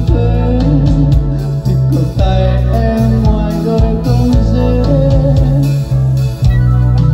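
Instrumental passage of a pop song played with guitar and bass guitar, loud and steady, with no singing.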